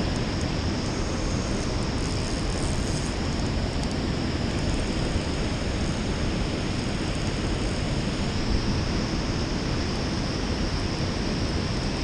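Steady rushing noise of a river pouring over a dam spillway and running fast past the angler.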